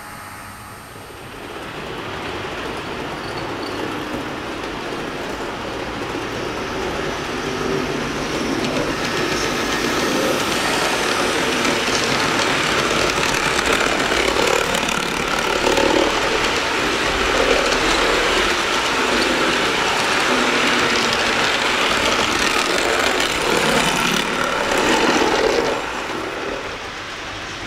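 Model Empire Builder passenger train running past on layout track: a rumble and clatter of wheels on rail that builds up, stays loud with a rhythmic swell as the cars go by, and falls away near the end.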